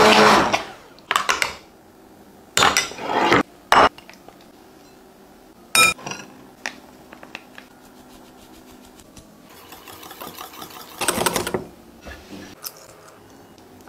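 Kitchen preparation sounds: an immersion blender stops just as it begins, then a series of separate knocks, clinks and scrapes of a metal sieve and utensils against glass bowls as flour is sifted over pumpkin purée and the batter is mixed, with one sharp ringing clink about six seconds in and a longer rough scraping stretch near ten to eleven seconds.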